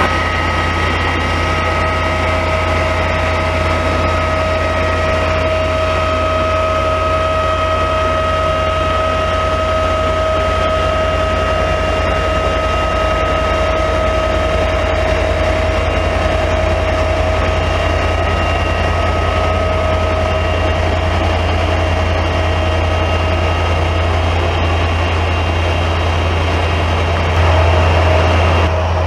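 SNCF CC 72100 diesel locomotive idling at a standstill: a steady low engine drone with a constant high whine over it, growing louder near the end.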